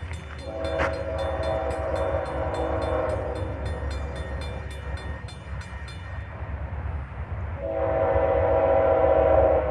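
Diesel locomotive air horn sounding two long blasts for a grade crossing as the train approaches, the second starting near the end and louder. Under the first blast a crossing bell rings fast, about four strokes a second, and stops about six seconds in, over a steady low rumble.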